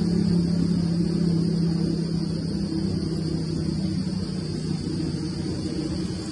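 Steady low mechanical drone with a hum, like a motor running, that fades out about five seconds in, over a constant high hiss.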